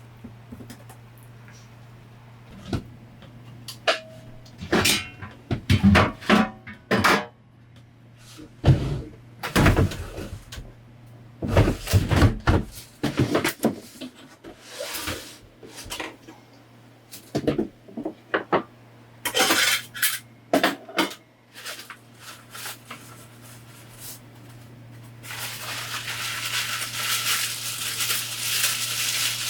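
Clatter and knocks of dishes, containers and cupboard doors being handled in a small camper interior, over a low steady hum. About 25 seconds in, a steady hiss sets in and continues.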